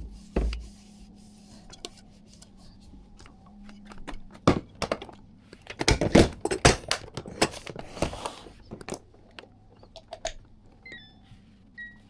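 Kitchen clatter from utensils and dishes: a run of sharp knocks and clicks, densest around the middle, then a few short electronic beeps near the end.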